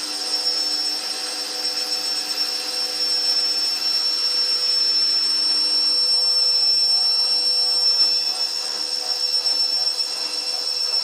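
Fagor washing machine running: a steady high-pitched whine with lower hum tones over a constant hiss.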